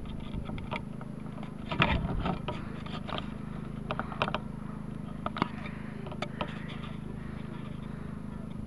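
Scraping and clicking handling noise of a small camera's microphone rubbing against something close over it, with a steady low electrical hum underneath. The clicks are scattered and irregular, with a busier cluster about two seconds in.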